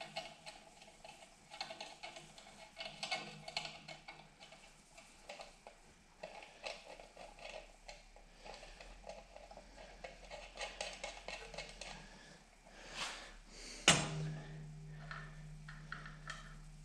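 Small scattered clicks and taps of metal parts being handled as the depth adjustment rod is threaded into a bandsaw blade sharpener. About fourteen seconds in comes one sharp knock, followed by a steady low hum.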